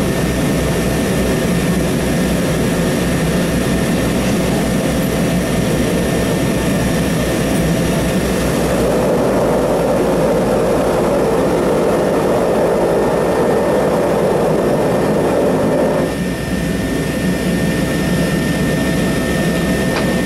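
Propeller airliner's turboprop engines running steadily, heard from inside the cabin as the plane taxis after landing. About nine seconds in the engine note grows louder, then eases back about sixteen seconds in.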